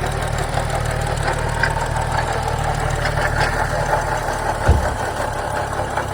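BMW 335i turbocharged straight-six idling with the unexplained noise its owner is asking about, a steady hum with light ticking over it. About three-quarters of the way through there is one loud low thump, and the deepest part of the hum drops off after it.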